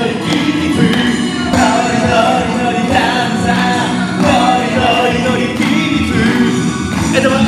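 A man singing into a handheld microphone over a backing music track, as entrance music.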